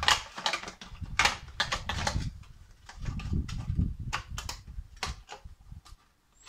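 Cardboard packaging being handled: a run of quick rustles, scrapes and taps as a boxed shock absorber is turned over in the hands, dying away shortly before the end.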